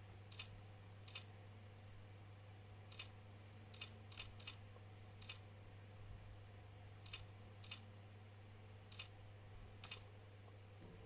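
Computer keys pressed one at a time, slowly and irregularly: about a dozen short, sharp clicks over a faint, steady low hum.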